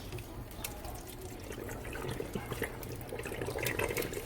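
Water running and splashing over ice inside a refrigerator, with scattered drips, as the iced-up compartment is flushed with water to melt the ice. The ice has built up because a defrosting part has failed.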